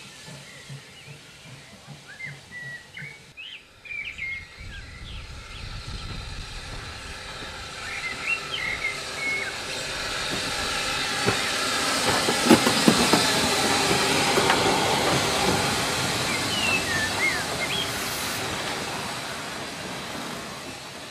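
Steam locomotive passing, hissing and clanking, growing louder to a peak about halfway through and then fading away. Birds chirp now and then.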